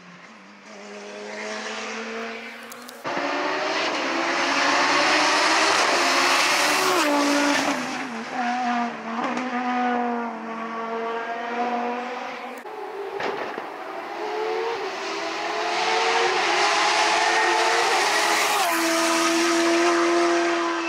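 Race car engines accelerating hard past on a hill-climb course, the pitch climbing and then dropping with each quick upshift, several times over as the cars go through the gears.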